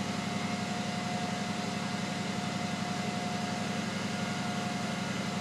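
3-cylinder Caterpillar diesel engine running steadily at low speed, about 1100 RPM, driving a 28-volt alternator that charges a battery bank. It makes a constant drone with a thin, steady whine over it.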